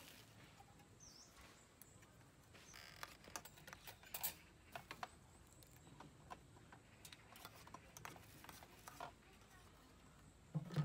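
Soft eating sounds: a spoon clicking and scraping against a metal bowl, with chewing. A dull thump comes near the end.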